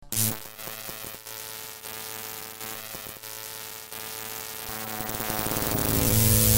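Logo-intro sound effect: an electric buzzing, crackling drone with many steady tones, starting abruptly and swelling louder over the last couple of seconds as it builds toward a hit.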